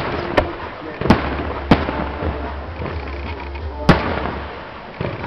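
Fireworks going off in a display: five sharp bangs over about four seconds, the loudest near the end, with a continuous crackling haze between them.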